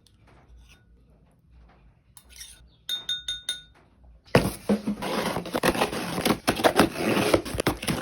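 A few quick light clinks, like a spoon against a dish, about three seconds in. Then, from about four seconds in, loud continuous rustling and crackling with many sharp clicks.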